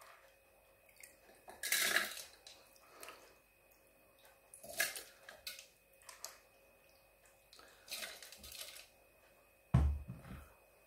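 Handfuls of soaked rice and chana dal dropping into a plastic food processor bowl, the wet grains clattering briefly against the bowl and blade a few separate times. A dull thump comes near the end.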